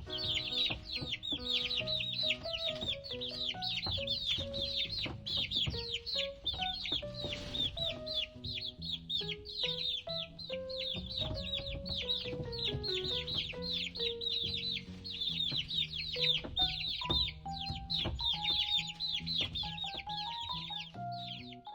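Chicks peeping: a fast, unbroken stream of short, high, falling chirps, several a second. Gentle background music with a simple melody and bass plays underneath.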